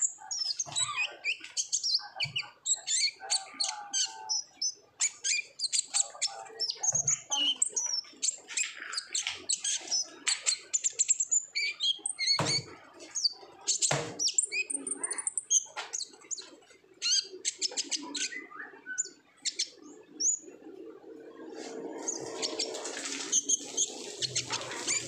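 Purple-throated sunbird (kolibri ninja) singing hard in a fast, continuous run of high twittering chirps and trills: the excited 'ngobra' song used to provoke other birds into singing. Two sharp knocks come about halfway, and a low background hum grows near the end.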